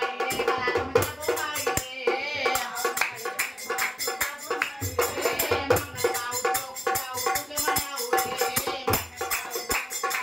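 Dholak drum played live in a fast, steady folk beat, with jingling percussion and a voice singing over it.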